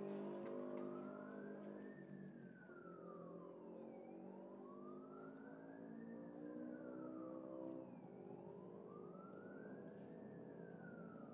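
A siren wailing slowly, its pitch rising and falling about once every four seconds, over a steady engine hum.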